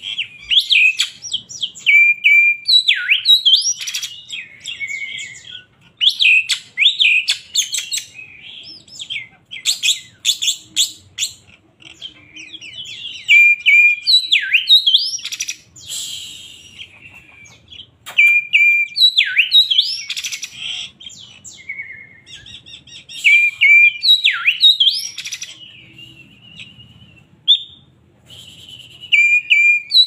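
Oriental magpie-robin of the black-bellied 'kacer poci' form singing hard: loud phrases of sweeping whistled notes, slurred up-and-down glides and rapid chattering runs, broken by short pauses every few seconds.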